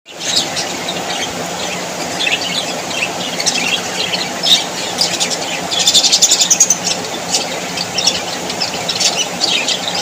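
A flock of budgerigars chattering and chirping continuously in many overlapping short, high calls, with a louder flurry of rapid chirps about six seconds in.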